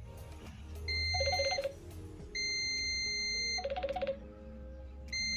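Digital multimeter's continuity buzzer beeping as the probes touch the ends of a wire, signalling a closed circuit. It sounds three times: a short beep about a second in, a longer one of over a second in the middle, and a short one near the end, each breaking off as the probe contact is lost.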